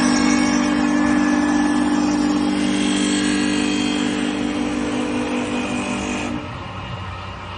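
CNC wood lathe running, its cutting spindle motor giving a steady whine over the hiss of the machining; the whine cuts out about six seconds in, leaving quieter machine noise.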